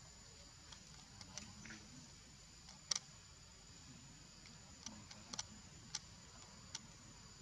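Faint scattered sharp clicks and ticks, a double click about three seconds in the loudest, over a steady faint high hiss.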